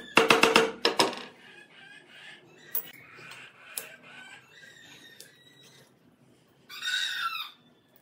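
Hand hammer striking a small steel knife piece on an anvil: a quick run of ringing blows, about four a second, stopping about a second in. After that only faint small clicks of handling, and a short pitched call near the end.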